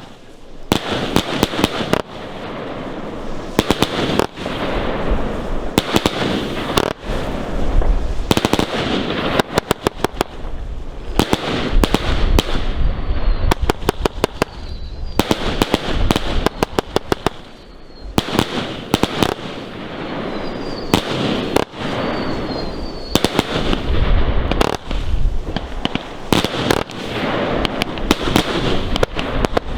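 Consumer firework battery going off: launch thumps and sharp bangs in fast rapid-fire volleys, with stretches of dense crackling between them. Faint whistles come through in the middle.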